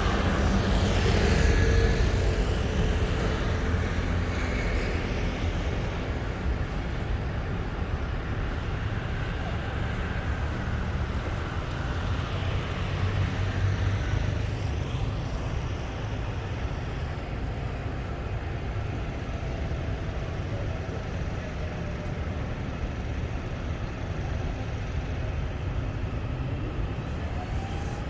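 Steady low vehicle rumble that slowly grows quieter, with a faint engine whine early on.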